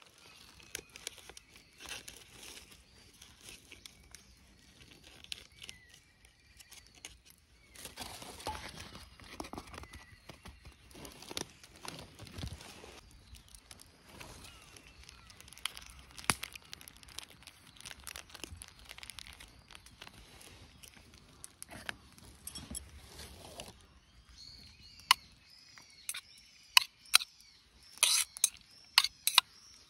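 Plastic food packaging crinkling and rustling while food is handled into a stainless steel camp cup. Near the end, a metal spoon clinks and scrapes sharply against the steel cup again and again as the food is stirred.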